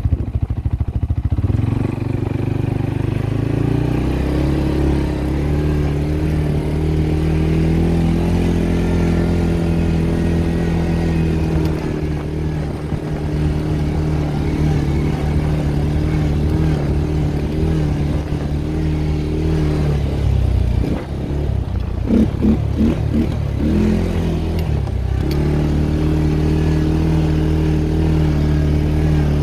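CFMoto CForce 400 ATV's single-cylinder four-stroke engine running under way, its pitch climbing over the first few seconds and then holding steady. About twenty seconds in it drops and pulses unevenly for a few seconds before pulling steadily again.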